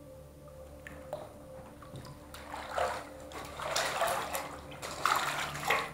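Shallow floodwater in a cellar sloshing and splashing as someone wades through it, with a run of irregular splashes through the second half. A faint steady hum lies underneath.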